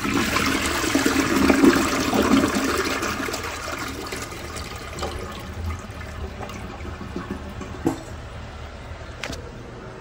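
Tank-type toilet flushing: water rushes loudly into the bowl and swirls down the drain, then dies down over the next few seconds to a quieter steady running of water, with a sharp click about eight seconds in.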